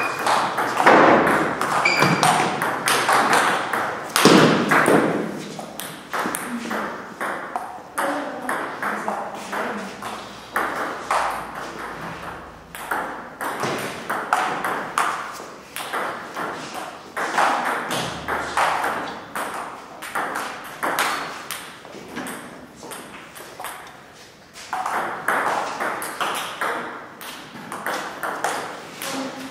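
Table tennis rallies: the ball clicks back and forth off the players' bats and bounces on the Cornilleau 540 table in quick, irregular runs of sharp taps.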